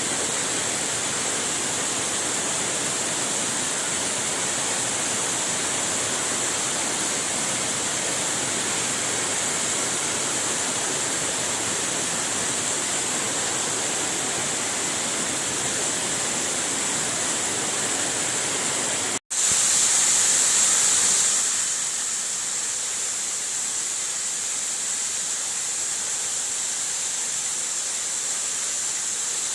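Waterfall's rushing water, a steady even roar. About 19 s in it cuts out for an instant, swells briefly, then carries on with less of its low rumble.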